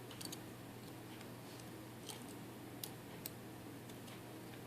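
A few faint, light clicks of small metal lock parts as a Euro cylinder and plug follower are handled during disassembly, scattered over a steady low hum.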